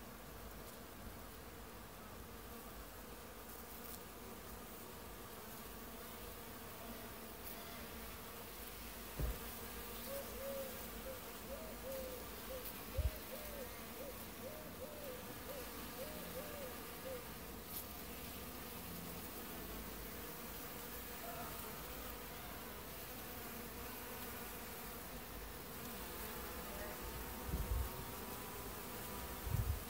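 Many insects feeding on flowering ivy, buzzing together as a steady hum of several overlapping pitches. A run of short wavering notes sounds in the middle, and a few low thumps come near the middle and near the end.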